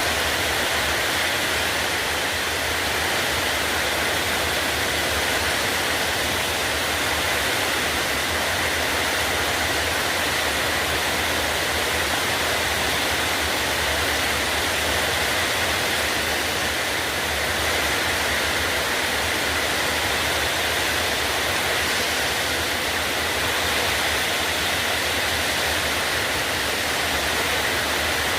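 Heavy rain falling in a steady downpour, a dense, even hiss that holds the same level throughout.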